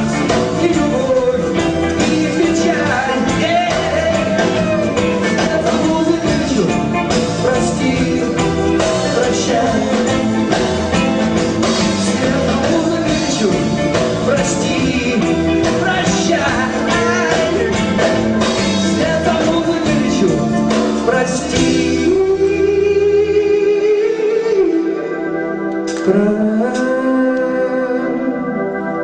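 Rock band playing live and loud over a steady drum beat. About three quarters of the way through, the drums and bass drop out, leaving held chords with a sliding lead line.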